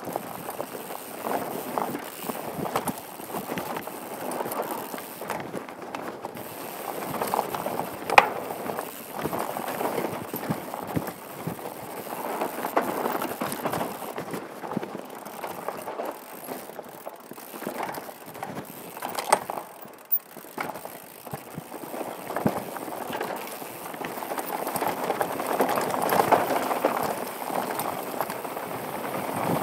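Downhill mountain bike descending a dirt and rocky trail, heard from a helmet-mounted camera: steady tyre noise over dirt and loose rocks, with the bike rattling and sharp knocks from rock hits, the loudest about eight seconds in and again near nineteen seconds.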